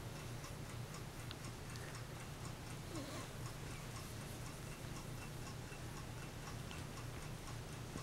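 Steady, even ticking, several ticks a second, over a low steady hum.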